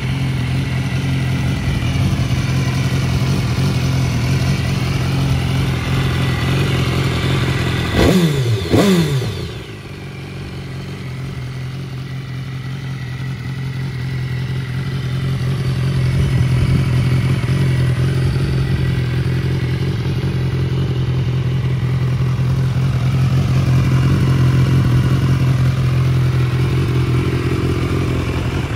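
BMW S 1000 R's 999 cc inline-four engine idling steadily, revved briefly twice about eight seconds in.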